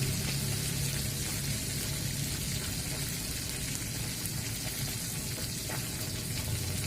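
Stir-fry sizzling in oil in a pan: a steady hiss with a few faint crackles.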